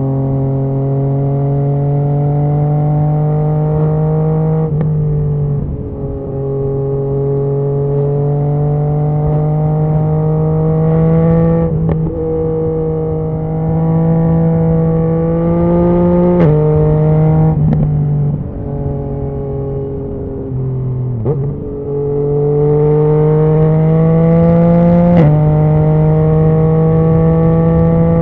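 2019 Yamaha MT-09's 847 cc crossplane inline-triple, fitted with a Scorpion Serket full exhaust, pulling along under load, its note climbing slowly over several seconds at a time. Several times the pitch changes abruptly with a short crack as the gear or throttle changes, over a steady rush of wind and road noise.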